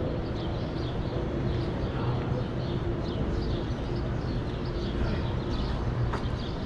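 City street ambience: a steady low rumble of traffic with a faint hum, and short high chirps repeating several times a second.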